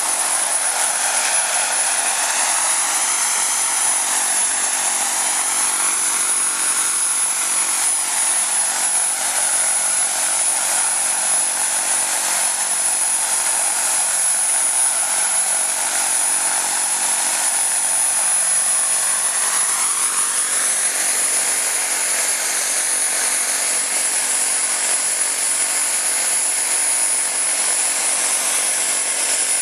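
JetCat PHT2 model turbine of a scale Alouette II radio-controlled helicopter running steadily at flying power while the model hovers. The sound is a jet whine with a constant high whistle over rushing exhaust and rotor noise, and some of its tones drift slightly up and down as the model moves.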